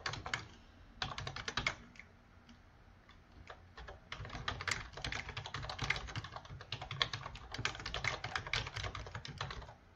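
Typing on a computer keyboard: two short bursts of keystrokes, a lull of about two seconds, then steady typing from about four seconds in.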